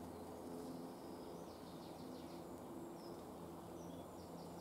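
Faint outdoor ambience: a low steady hum under small high chirps, a quick run of about five chirps a second and a half in and a few single notes after it.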